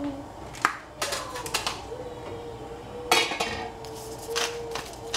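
Kitchen dishes and utensils clinking and clattering: scattered light clicks, a louder clatter about three seconds in, then a few more clinks.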